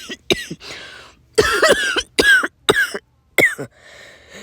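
A person acting out a fit of congested chest-cold coughing: about seven harsh coughs in quick runs, with breaths drawn in between.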